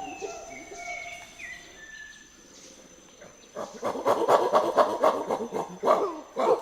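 Rainforest wildlife calls: a few clear whistled bird notes with a steady thin high tone behind them, a short lull, then from about three and a half seconds a loud run of rapid falling calls in quick succession, several a second.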